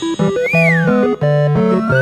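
Bouncy cartoon music on keyboard and synthesizer, with a whistling tone sliding up and down about half a second in and another rising whistle near the end.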